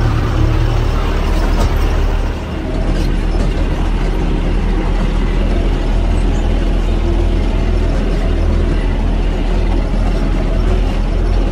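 Tractor engine running steadily under load, heard from inside the cab while it pulls a trailer loaded with about 5.5 tonnes of round haylage bales. The cab and the loaded trailer rattle continuously over the rough field.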